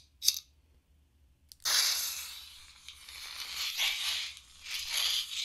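Custom lightsaber's small speaker playing a sound font: a short click, near silence for about a second, then the blade sound comes in suddenly and carries on as a noisy, hissing hum that swells and fades several times, like swing sounds.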